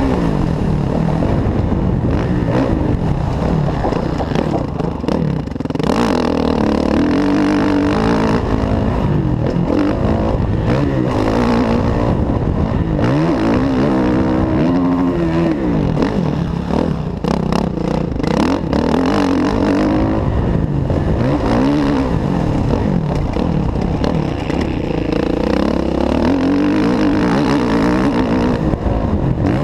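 Kawasaki KX450F's single-cylinder four-stroke engine revving up and dropping back again and again as the bike is ridden hard over a motocross track, heard close up from a camera on the bike.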